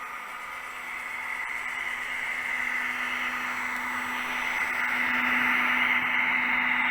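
H0-scale LUX track-cleaning vacuum car, pushed by a Märklin Henschel DHG 700 diesel shunter, running with its small suction motor whirring steadily, growing louder over the first five seconds as the train comes closer.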